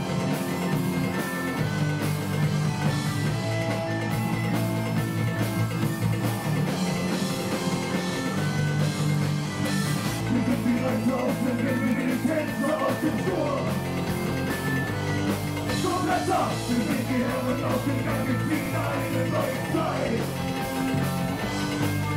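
A rock band playing live, with electric guitars and drums over sustained melody notes; singing or shouted vocals come in about halfway through.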